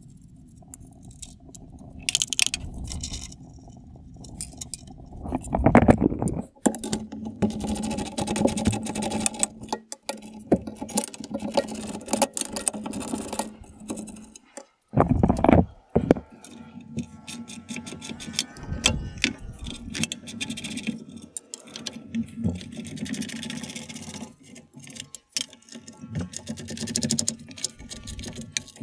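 Hand tools working on metal: irregular clinking, rattling and clicking of wrenches and ratchets on the Land Cruiser's radiator bolts, with louder scraping clatters about six and fifteen seconds in.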